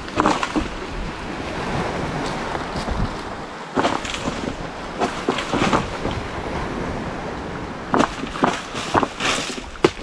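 Surf washing in and wind on the microphone, broken by sharp knocks and rustles as a long pole jabs up into a coconut palm to knock down jelly coconuts, most of them in a cluster near the end.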